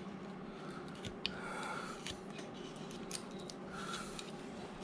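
Carving knife slicing small chips from a wooden carving blank: a few short soft scraping cuts and small sharp clicks as chips break away, over a steady low hum.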